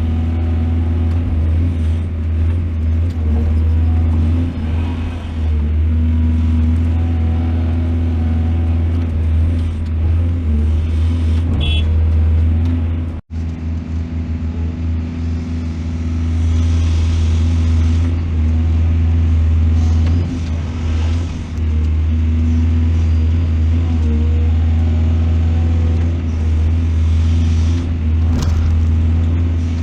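Heavy excavator's diesel engine running steadily with a deep, continuous hum, cutting out for an instant about thirteen seconds in.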